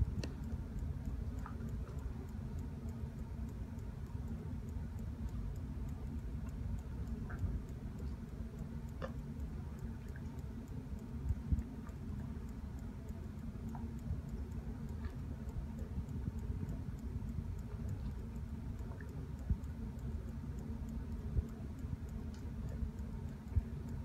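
Scattered soft clicks and smacks of a dog gently nibbling and licking at another dog's paw, a few every several seconds, over a low steady rumble.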